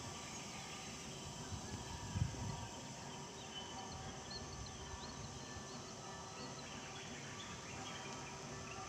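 Steady hum of insects, with a few short high bird chirps in the middle and a brief low rumble about two seconds in.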